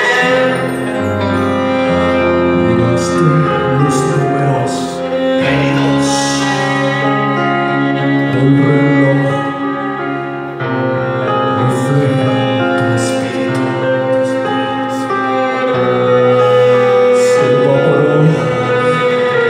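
Death metal band playing live through the hall's PA: a slow passage of long held keyboard and violin chords over bass, changing chord about every five seconds.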